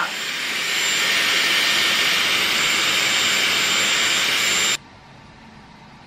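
Dyson Airwrap hair styler running with its curling barrel, a steady rush of blown air with a faint high whine as the airflow wraps a section of hair around the barrel. The sound cuts off suddenly about three-quarters of the way through.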